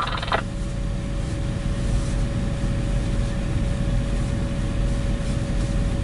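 Semi truck's diesel engine idling, heard from inside the cab: a steady low rumble, with a thin steady tone held above it.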